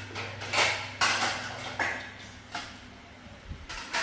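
Dishes clattering and knocking together in a kitchen sink, a string of sharp knocks about every half second to a second.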